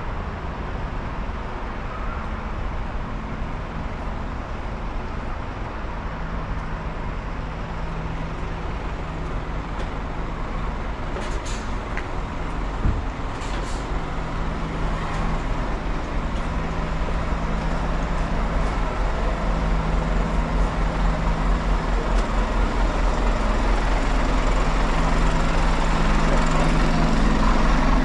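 Street traffic with a motor vehicle's engine running as a steady low hum, growing gradually louder. A single short knock near the middle.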